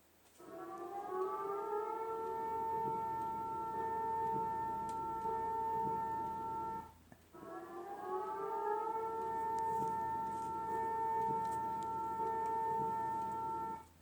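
Bahrain's civil defence warning siren, sounding twice. Each time it winds up in pitch over a second or two, then holds a steady note of several tones together for about five seconds before cutting off.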